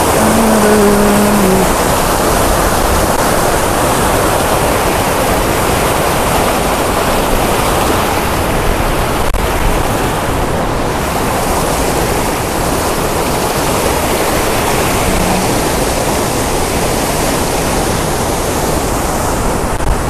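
Waterfall and whitewater rushing close by: a loud, steady roar of falling and churning water.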